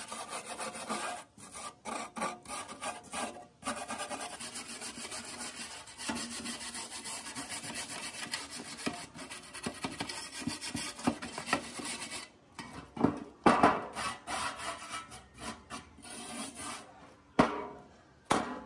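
Metal scraper scraping rust off the steel housing of a fog machine in rapid rubbing strokes; near the end the strokes slow and grow louder, with a sharp knock.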